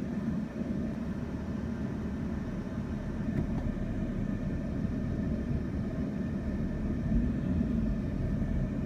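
Heavy diesel farm machinery (combine and grain cart tractor) running steadily: a low rumble that grows slightly louder near the end.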